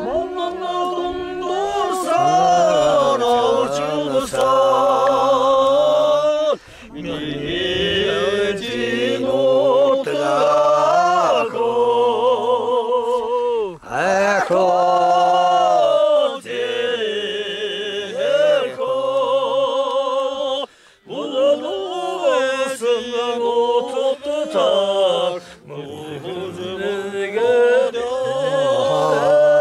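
Unaccompanied singing in long, drawn-out phrases, each held note quavering with ornaments. The phrases break off briefly for breath about every five to seven seconds.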